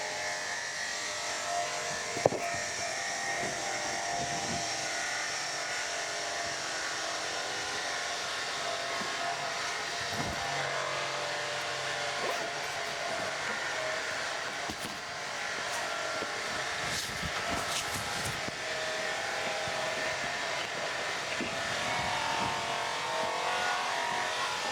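Steady rushing of a stream running high after rain, with a few brief knocks and clicks, the sharpest about two seconds in.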